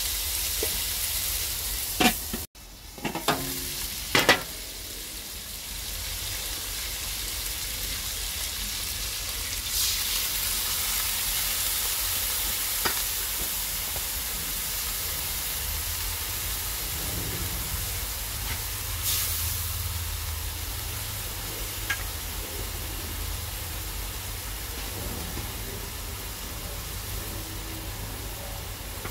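Chicken wings sizzling steadily in a steel wok. A few sharp clanks of the spatula against the wok come about two to four seconds in.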